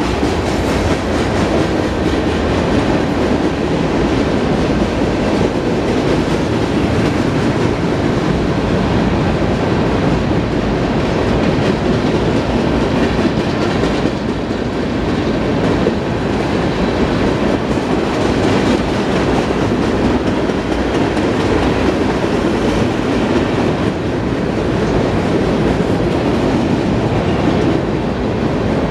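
Cars of a BNSF mixed freight train rolling past close by, a steady noise of steel wheels running on the rails.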